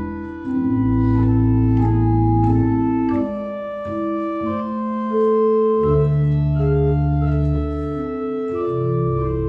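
The restored 1869 Wilhelm Remler pipe organ playing a slow romantic passage: chords held for a second or two each over a deep bass line, with a melody moving above.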